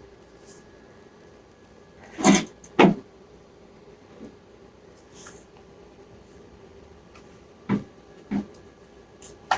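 Sharp knocks, two in quick succession about two seconds in and another pair about three quarters of the way through, over a faint steady hum.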